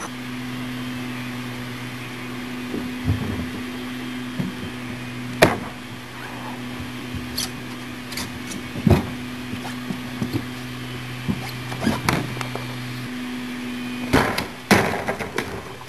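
A steady low hum with a few scattered knocks and thuds; the hum stops near the end.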